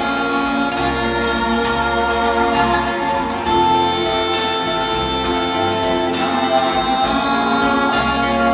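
An orchestra playing with several voices singing over a bass line that moves from note to note.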